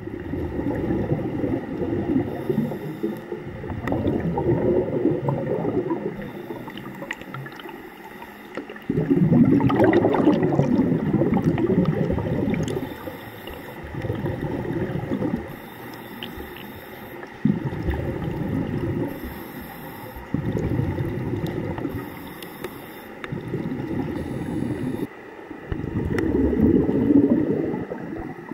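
Muffled, churning underwater water noise picked up by a camera sealed in an underwater housing, with surges a few seconds long as swimmers' strokes and kicks stir the pool water. The level jumps abruptly several times, and a faint steady high tone runs underneath.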